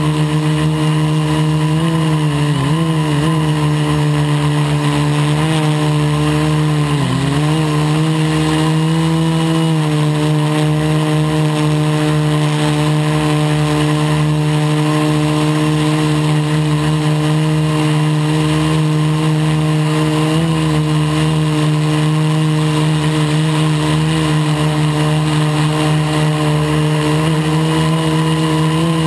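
Quadcopter's electric motors and propellers running with a loud, steady hum, heard from the GoPro carried on the craft. The pitch wobbles and dips briefly a couple of times in the first ten seconds as the throttle changes.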